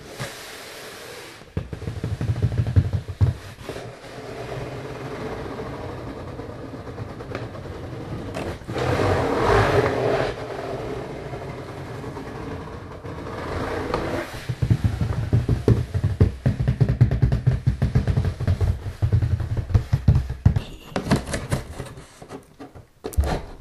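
Fingers tapping and scratching on a cardboard box close to the microphone, in quick runs of rough, low taps, with a longer rubbing swish about nine seconds in.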